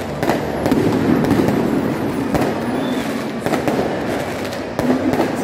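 Aerial fireworks going off: a string of sharp bangs and crackles at irregular intervals, over a steady background din.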